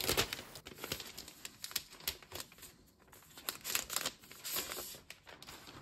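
Protective wrap being peeled off a new MacBook Air, giving faint, scattered crinkles and short tearing crackles.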